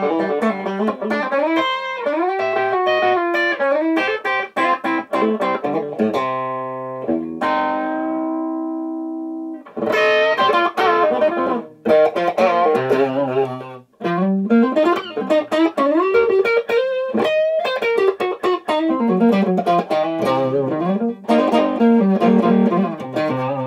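Telecaster-style electric guitar through a Wampler Paisley Drive overdrive pedal set for a little dirt, into a PRS 1x12 amp: quick picked licks with string bends. About seven seconds in, a chord is left ringing for a couple of seconds.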